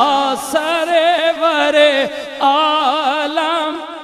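A man singing a long drawn-out held note with wavering ornaments in a devotional chant; it fades away near the end.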